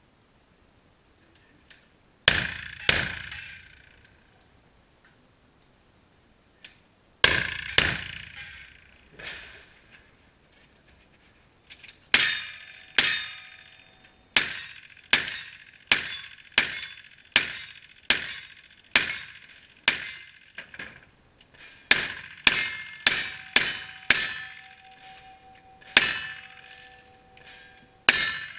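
Gunshots: two shots, a pause, a few more, then a fast, even string of lever-action rifle shots about every half second, followed by revolver shots. In the later shots, steel targets ring on after the hits.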